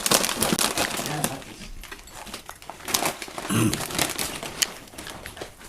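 Crinkling and crackling of a snack bag of crispy potato sticks being handled and shaken out, with many quick sharp crackles.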